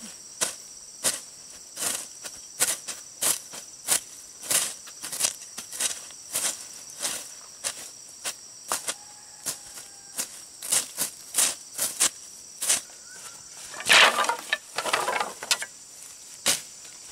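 Machete chopping at bamboo and brush in steady strokes, about two a second, with a louder rustling scrape about fourteen seconds in. Insects drone steadily underneath.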